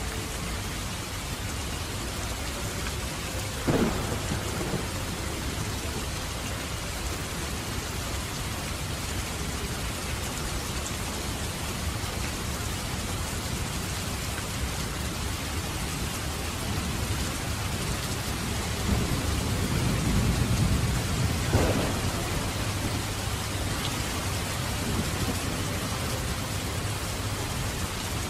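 Steady rain falling and dripping. A low rumble of thunder swells about 19 seconds in and ends in a sharp crack a little after 21 seconds, and a shorter crack comes about 4 seconds in.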